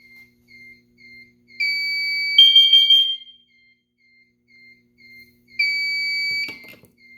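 Fire alarm system sounding during a carbon monoxide detector test: a soft high electronic beep repeats about twice a second, broken twice by a loud, steady, high-pitched alarm tone lasting about a second, the first joined partway by a second, higher tone. A brief clatter comes near the end.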